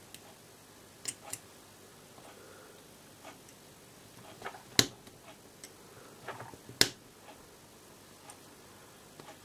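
A hobby knife blade scrapes and clicks against the hard plastic of a LEGO pneumatic switch body as thin layers of a plastic stopper are shaved off. The clicks are soft and scattered, with two sharp ones about two seconds apart near the middle.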